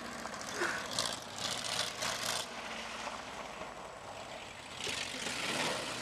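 1979 Dodge van's engine running as the van drives across a gravel lot toward a dirt jump, heard from a distance. Rushing noise swells about a second in and again near the end.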